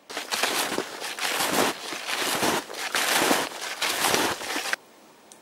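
Footsteps on snowshoes crunching through snow, about a step every half second, cutting off abruptly near the end.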